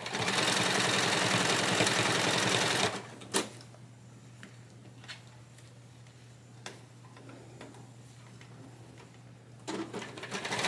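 Electric sewing machine stitching at a steady speed for about three seconds, then stopping. A few faint clicks follow, and the machine starts sewing again near the end.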